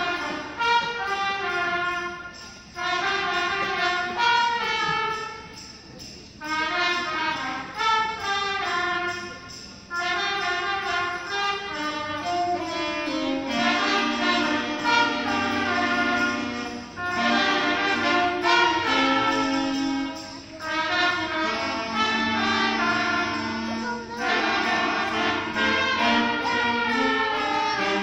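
Middle-school concert band playing a Christmas arrangement, flutes, clarinets and brass together. The first half comes in short phrases with brief breaks between them; from about halfway the playing is fuller and continuous, with held low notes underneath.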